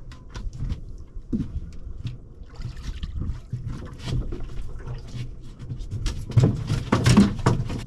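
Scattered knocks and clatter with water sounds aboard a small fishing boat, growing louder and busier in the last two seconds.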